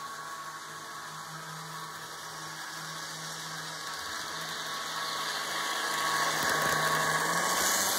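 Two HO scale model locomotives running on parallel tracks: a steady motor hum with wheel-on-rail running noise that grows steadily louder as they approach.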